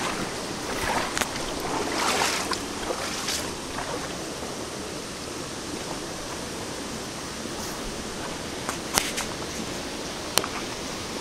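Steady rush of water flowing over rocks in a forest stream, a little louder in the first few seconds, with a few sharp clicks about nine and ten seconds in.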